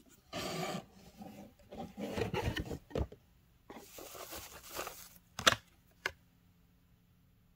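Shredded paper filler and cardboard rustling in several stretches as hands dig through a gift box and lift out a paper card, with a sharp tap about five and a half seconds in and a smaller one just after.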